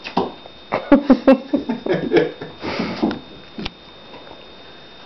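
Kittens' paws thumping and scrabbling on wooden floorboards as they chase a toy dragged across the floor: a quick run of soft thumps for about two seconds, a short scraping slide near the middle, then one last tap.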